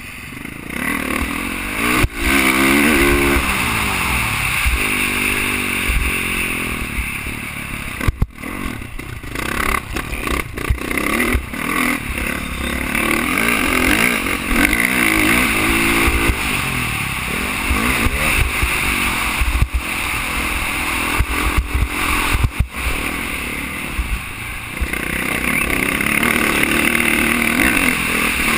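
Dirt bike engine on a motocross track, revving up and down repeatedly as the rider accelerates and backs off. It is heard through a helmet-mounted camera, with steady wind rush on the microphone and frequent sharp knocks from bumps and flying dirt.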